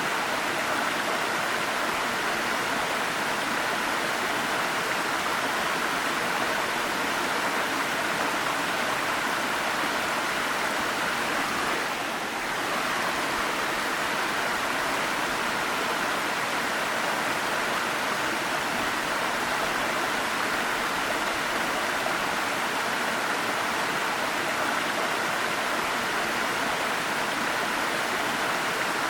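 Waterfall: a steady rush of falling and splashing water, with a brief slight dip in level about twelve seconds in.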